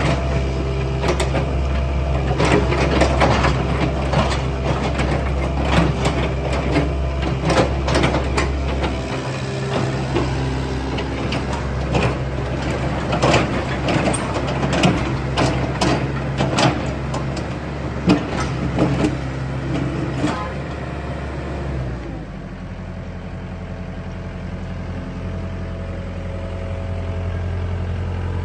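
Hitachi ZX70 tracked excavator's diesel engine running, with many sharp metallic clanks and knocks from the machine for about the first twenty seconds. The clanking then stops and the engine settles to a steadier, lower note.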